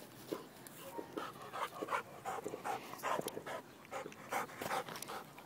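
Black Labrador retriever panting in short, irregular breaths as it searches with its nose down in dry grass.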